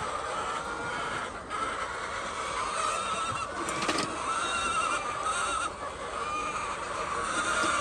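Hens in a poultry shed calling continuously in a wavering, overlapping chorus, with a few sharp clicks about four seconds in.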